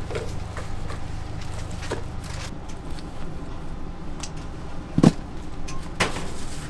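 A low hum that stops about two and a half seconds in, with scattered clicks and knocks, the loudest a sharp thud about five seconds in and another a second later.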